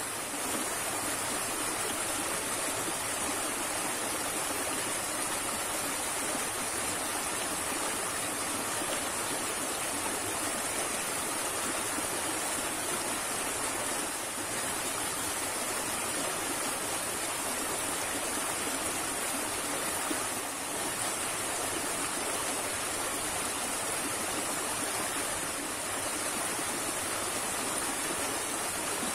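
Small, muddy stream rushing steadily over rocks: a continuous, even sound of running water.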